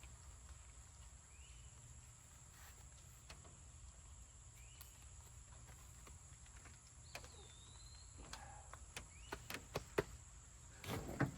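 Outdoor ambience: a steady high insect drone with a few short bird chirps and one longer whistled note. From about eight seconds in comes a run of clicks and knocks from hunting gear being handled.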